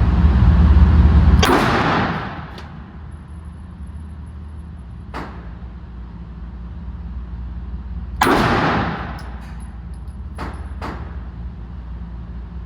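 Two 9mm pistol shots from a Springfield Hellcat Pro about seven seconds apart, each sharp report ringing out in a short echo. Fainter sharp reports and clicks fall between and after them.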